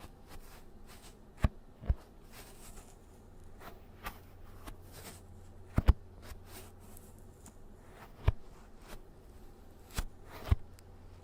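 Close-microphone handling noise: soft rustling with a few dull thumps, some in quick pairs, over a steady low hum.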